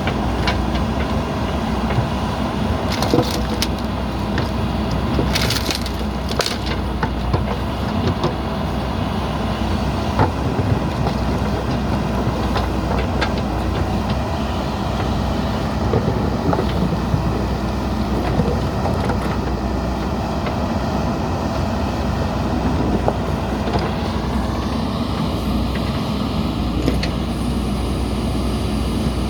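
Backhoe loader's diesel engine running steadily under work, with a few sharp crackling knocks around three and six seconds in.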